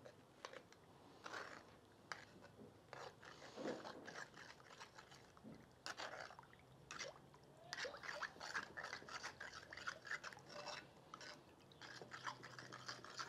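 Faint, irregular scraping and tapping of a spoon as cornstarch is scooped into a little milk and stirred to dissolve it without lumps.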